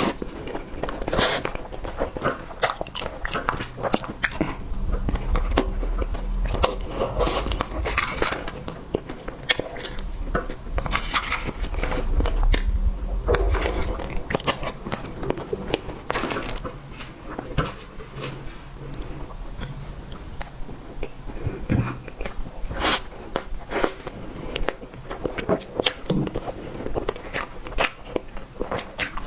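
A person eating close to the microphone: irregular bites, chewing and small mouth clicks, with a low rumble for several seconds in the middle.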